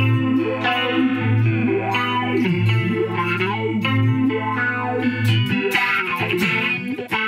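Electric guitar through an Old Blood Noise Endeavors Reflector chorus pedal set as a filter sweep with pitch vibrato added. Held notes wobble in pitch while a sweep rises and falls through them, the two effects running out of sync. The low held note stops about five and a half seconds in and fresh notes are picked near the end.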